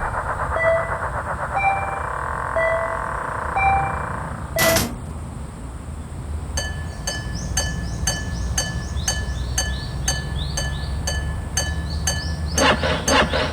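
Japanese railway level-crossing warning sounds: first a two-tone chime repeating about once a second, then, after a short burst about four and a half seconds in, the crossing bell striking in a fast even beat, about two to three strikes a second, growing louder near the end over a steady low hum.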